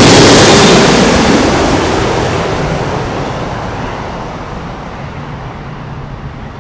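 Jet engine roar of a Boeing 777-300 arriving, loud at first and then fading steadily as the aircraft moves away, its high-pitched edge dying off first until only a low rumble is left.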